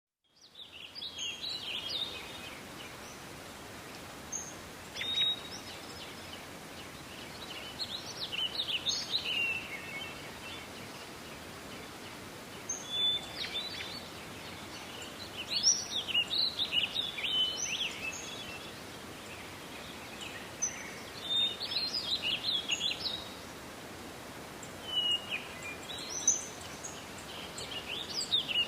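Songbirds singing in short bursts of high chirps and trills, a phrase every few seconds, over a steady hiss of forest ambience.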